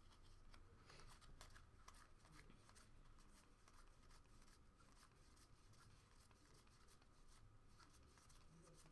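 Faint, near-silent handling of trading cards: soft clicks and slides as cards are flipped through one after another.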